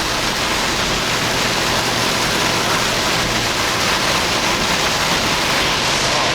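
Torrential tropical-storm rain beating steadily on a moving Jeep Wrangler, mixed with the vehicle's road noise.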